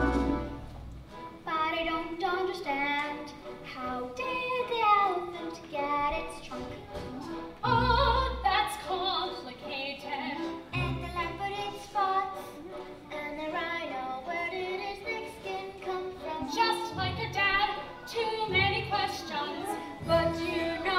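Opera singing with orchestral accompaniment: voices sing a sung passage over the instruments, with deep low notes coming in now and then.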